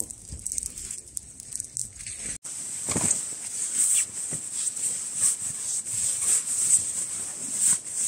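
Rustling and scrunching of nylon as a sleeping bag is stuffed into a stuff sack, in repeated short pushes. It starts after a cut about two and a half seconds in; before that there are only faint small handling clicks.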